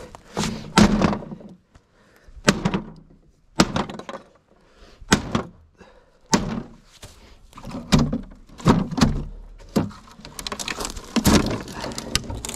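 A series of sharp thumps and knocks, about one every second, as of heavy objects being bumped and set down.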